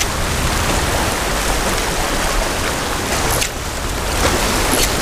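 Steady rushing noise of wind on the microphone mixed with ocean surf at the shoreline, dipping briefly a little past halfway.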